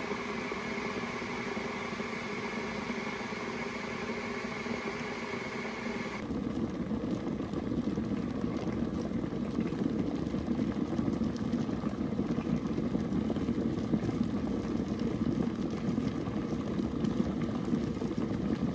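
A motor running steadily with a hum of several fixed tones; about six seconds in it switches suddenly to a louder, rougher running.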